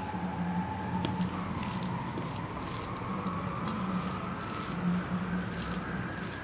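Close-miked wet eating sounds: chewing, lip smacks and squishing of a mouthful of rice and curry, in many short clicks and smacks, over a steady low hum.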